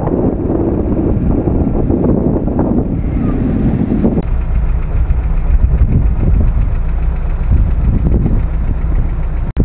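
Engines of off-road vehicles idling, with wind rumbling on the microphone; the rumble eases about four seconds in.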